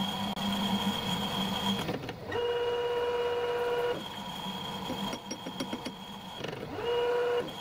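Metal lathe running, a steady mechanical whine that shifts in pitch and cuts in and out in steps, with some light ticking in the middle.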